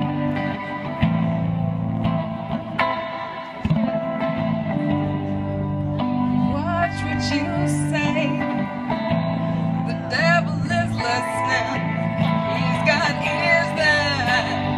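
Live band music with an amplified electric guitar; a woman's singing voice comes in about six seconds in and carries on over the guitar.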